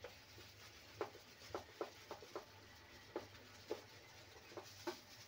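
Wooden spoon stirring thick cake batter in a bowl: faint, irregular knocks and scrapes of the spoon against the bowl, about two a second.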